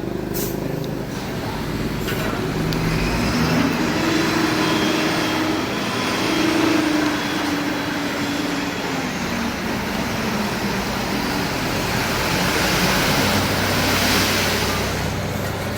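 Heavy diesel machinery running steadily at a road-paving site, with engine pitch wavering through the middle and a hissing swell near the end.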